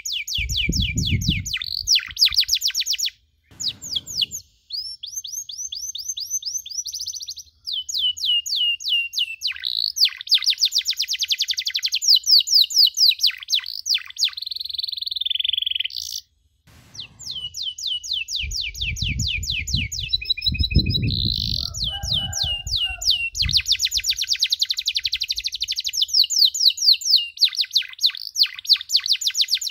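Domestic canary singing: fast trills of repeated high chirp notes in long runs, broken by a few brief silent gaps. A low rumble sounds underneath about a second in and again a little past the middle.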